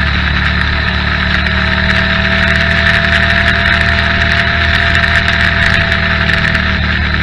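Motorcycle engine running steadily under way, mixed with rushing air and road noise. A faint steady whine joins about a second and a half in and fades near the end.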